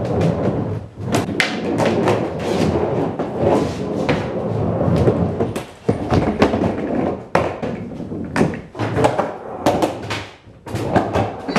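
Skateboard rolling, with its wheels rumbling and many sharp thuds and clacks as the board knocks against the ground and ramps.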